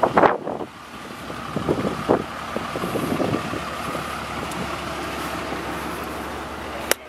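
Truck engine idling steadily, with a few irregular knocks in the first three seconds and a sharp click near the end.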